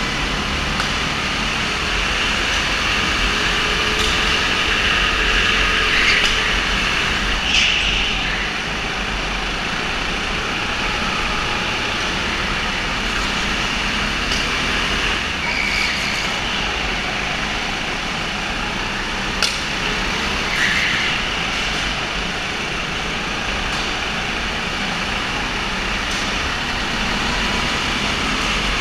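Go-kart engines running steadily in a race on an indoor track, with a faint whine that shifts in pitch as the karts speed up and slow down. A few brief sharp sounds cut through, one about a third of the way in and a short squeak about two thirds of the way in.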